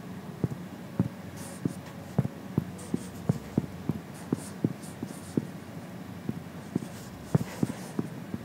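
Typing on an iPad's touchscreen keyboard: irregular taps on the glass, about two to three a second.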